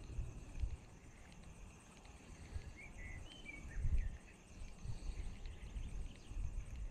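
Quiet lakeside ambience: irregular low rumbling of wind or handling on the microphone, with a few faint bird chirps about halfway through.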